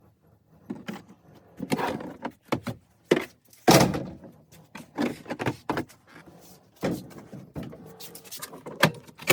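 A run of irregular knocks and clunks from things being handled, the loudest about four seconds in and another sharp one near the end.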